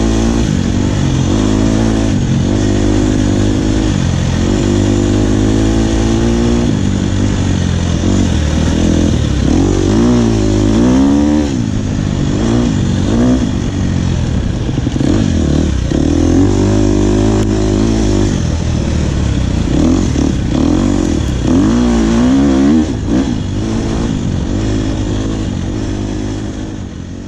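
KTM four-stroke single-cylinder dirt bike engine under way, its pitch climbing and dropping again and again as the rider accelerates and eases off, over a steady rush of wind noise. The sound fades out near the end.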